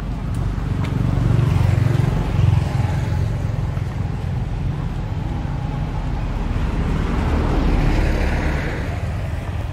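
Road traffic: a low steady rumble that swells as vehicles pass, once a second or two in and again near the end.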